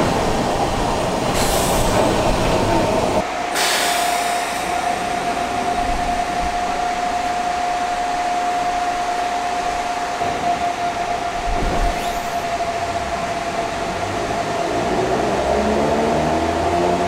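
Narrow-gauge electric train of the Sangi Railway Hokusei Line running past a platform, then a steady high hum while a train stands at the station. Near the end a train pulls away with the rising growl of its nose-suspended (tsurikake) traction motors, climbing in pitch as it speeds up.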